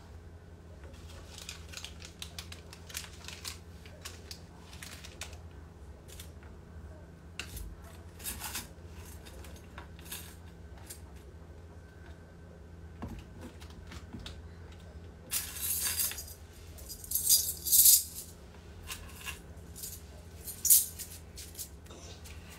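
Rummaging through items on a closet shelf: scattered short clicks and rattles of things being handled, with louder bursts of rustling about two-thirds of the way through and once more near the end, over a steady low hum.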